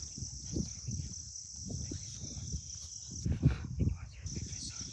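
Steady, high-pitched drone of an insect chorus in forest, with irregular low thumps and rustling underneath; the loudest thumps come about three and a half seconds in.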